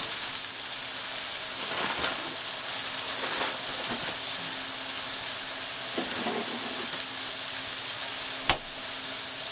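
Chopped onion, garlic and ginger sizzling steadily as they fry in a little oil in a nonstick pan, with one sharp knock a little over eight seconds in.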